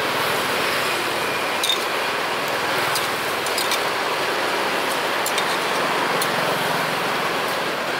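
Steady outdoor street-food market background noise, a continuous hiss of traffic and surroundings, with a few light clinks scattered through it.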